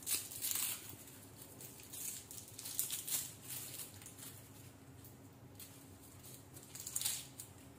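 Kitchen knife peeling and cutting a red onion in the hand: scattered brief, papery scrapes and crackles, clustered about three seconds in and again about seven seconds in, over a faint steady low hum.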